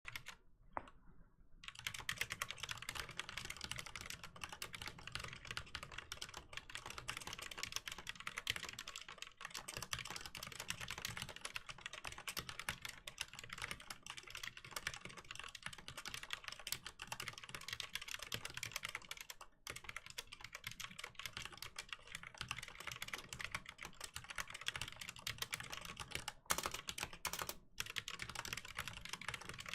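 Fast, continuous typing on a Mistel Barocco mechanical keyboard with Cherry MX Black linear switches: a dense stream of key strokes and bottoming-out clacks. It begins with a few scattered keystrokes, settles into steady rapid typing about two seconds in, and has a couple of brief pauses later on.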